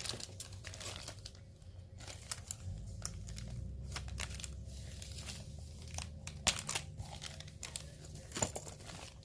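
Packaging being handled: crinkling and rustling with many short, sharp clicks, as the next piece of jewelry is unwrapped.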